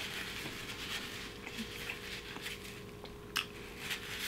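Quiet chewing of food close to the microphone, soft wet mouth clicks with one slightly louder click about three and a half seconds in.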